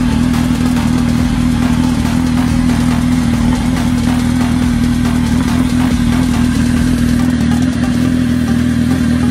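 A stretched-swingarm sportbike engine idling steadily at an even, unchanging pitch.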